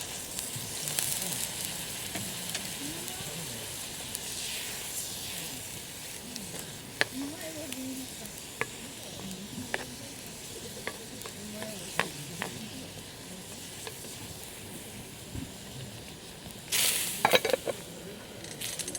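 Food sizzling in a skillet over a campfire, a steady hiss with a few scattered sharp clicks. A brief louder burst of noise and clicks comes near the end.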